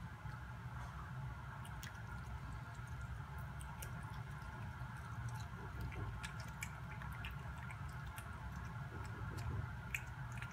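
A cat eating peeled shrimp off a plate: small wet chewing clicks and smacks, scattered and coming thicker over the second half, over a steady low hum.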